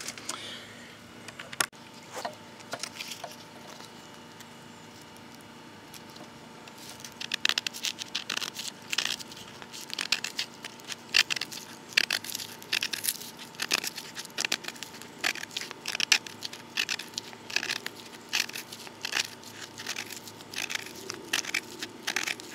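A few light knocks, then, from about seven seconds in, birch bark being peeled and torn apart by hand in an irregular run of short, dry rips.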